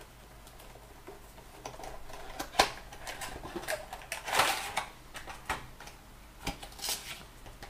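Cardboard product box with a clear plastic window being handled and pulled apart: scattered light clicks and taps, with a longer rustle of card and paper about halfway through.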